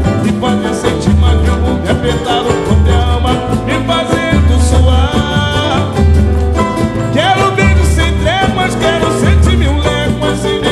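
Samba band playing an instrumental passage with the lead vocal out. A deep beat comes about once a second under melodic lines that slide up in pitch.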